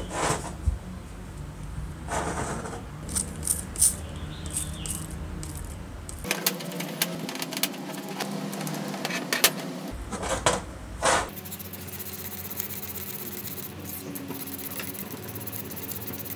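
Small metallic clicks, rattles and knocks from handling the drill's aluminium switch housing and its contact block, with a run of dense clicking in the middle.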